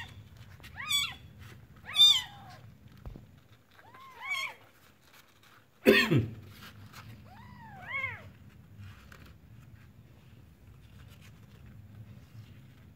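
Newborn kitten mewing in short, high-pitched squeaks that rise and fall, four of them spread over the first eight seconds. About six seconds in there is one louder, abrupt sound that drops in pitch.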